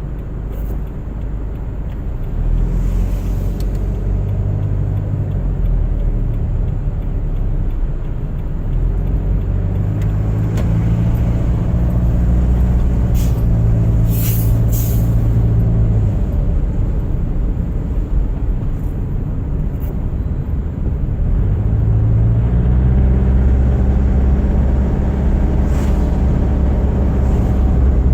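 A car driving on a winter road: a steady engine hum under road and tyre noise. The engine note grows stronger about ten seconds in and again a little past twenty seconds, as the car pulls away or speeds up. A few short ticks come near the middle.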